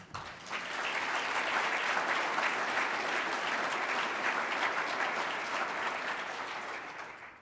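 Audience applauding: a dense crackle of many hands clapping that swells in the first second, holds steady, then tapers and stops just before the end.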